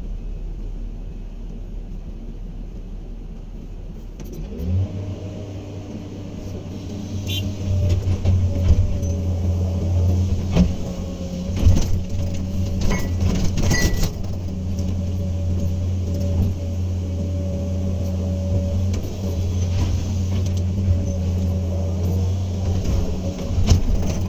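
Komatsu PC200 excavator's diesel engine running, revving up about five seconds in and then holding a steady working speed, with scattered knocks and clanks and a brief high squeal in the middle.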